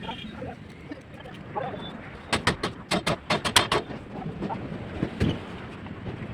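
A quick run of about nine sharp knocks, roughly six a second, lasting about a second and a half, then a single duller thump near the end.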